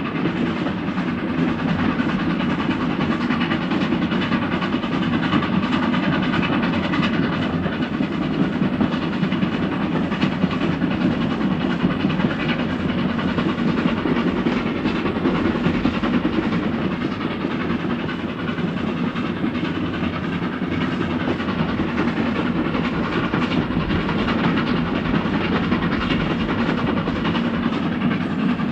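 Steam train running steadily along the track, a continuous mix of running noise and rattle with no break.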